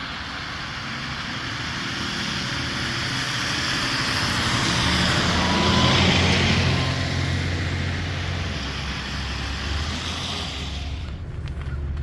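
Diesel-hauled commuter train passing, its engine's low drone and the rolling noise swelling to a peak about halfway through, then easing off.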